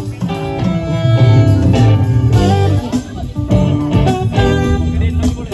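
Live band playing: electric guitar and saxophone over bass and a steady drum beat.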